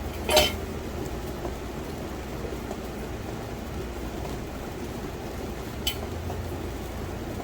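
Dried mullein leaves rustling and crackling as they are handled and pushed into a tea bag, with two sharper crackles, the louder one near the start and another about six seconds in, over a steady low hum.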